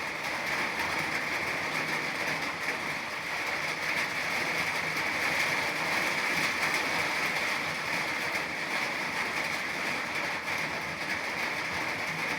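Steady rain falling, an even, continuous hiss with no breaks.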